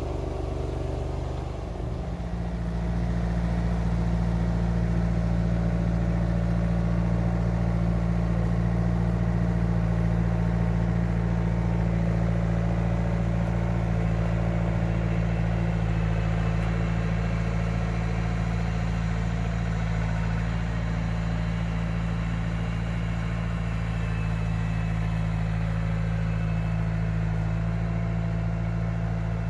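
Engine of a small tracked farm machine running steadily. It picks up speed about two seconds in, then holds an even pitch.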